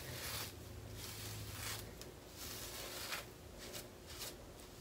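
Stiff hard-bristle hair brush scraping up through thick, gelled natural hair in a quick series of strokes, about one or two a second, slicking it back toward a ponytail.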